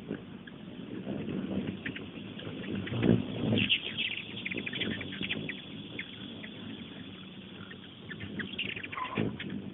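Hummingbirds at a feeder giving rapid, high chipping and twittering calls over low background noise, with a dense flurry about three and a half seconds in and another near the end.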